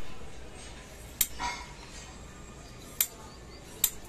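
Scissors cutting a rubber sheet: three sharp snips, about a second in, at about three seconds and near the end, with a light metallic clink after the first.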